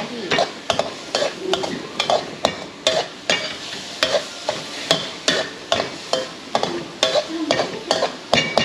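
Metal spatula scraping and clanking against a wok in quick repeated stirring strokes, about two to three a second, over the sizzle of a stir-fry.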